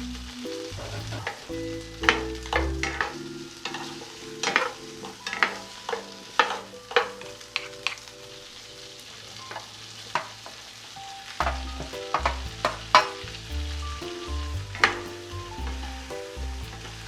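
Sausage and vegetables sizzling in an oiled frying pan as they are stir-fried, with the stirring utensil knocking and scraping against the pan over and over.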